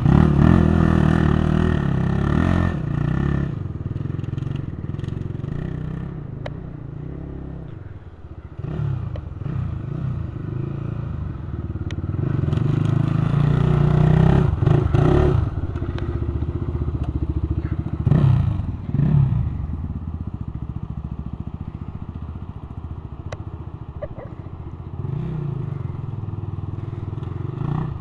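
Sport quad (ATV) engine running as the machine rides in loose sand, the throttle opening and easing off again and again, with a few sharp revving surges around the middle.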